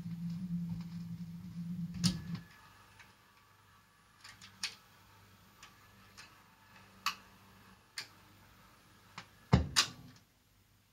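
Radiogram record player after the record ends: a steady low hum from the set for about two seconds, cut by a sharp click. Light mechanical clicks follow at uneven intervals, and a louder double knock comes near the end.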